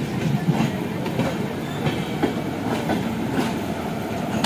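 Passenger coaches of an Indian express train rolling past at slow speed, with a steady rumble and the clickety-clack of the wheels knocking over the rail joints a couple of times a second.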